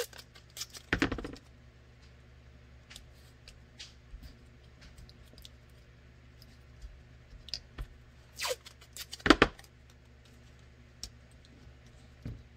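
Blue painter's tape being torn and pressed down by hand around a weapon light: scattered short rips and crinkles, loudest about a second in and again around nine seconds, with a last rip near the end.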